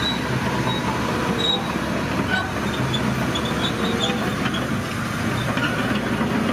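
Steady rumble of heavy diesel machinery: a dump truck tipping its load of sand with a crawler bulldozer working close by, with scattered light metallic clinks over the engine noise.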